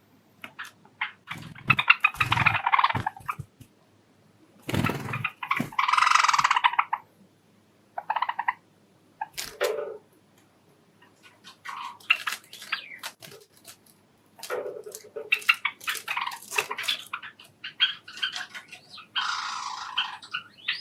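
Pet Java sparrows chirping and calling in irregular bursts of rapid clicking notes, with a couple of low thuds mixed in.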